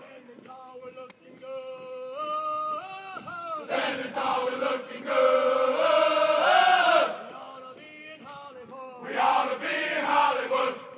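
Marching cadence chanted by a formation of cadets: a lead voice sings out a line and the whole group answers together, loud and in unison.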